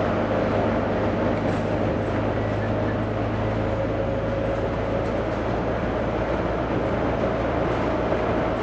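Volvo B9TL double-decker bus's rear-mounted six-cylinder diesel engine running steadily while the bus drives along, mixed with road noise. Heard from inside the passenger cabin.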